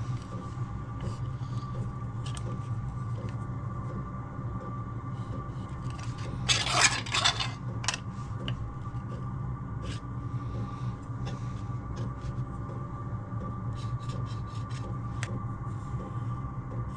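Light scraping and small clicks of hand work on a sheet of aluminium, with one louder scrape about seven seconds in, over a steady low hum.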